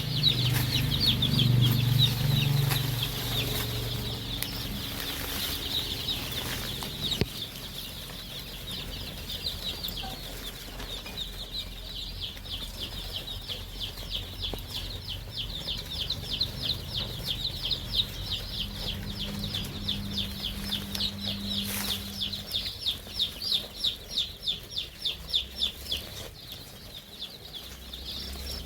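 A flock of Kaveri gavran chickens calling, a dense chorus of rapid, high peeping calls that grows more rhythmic in the second half, with a louder, lower sound in the first few seconds.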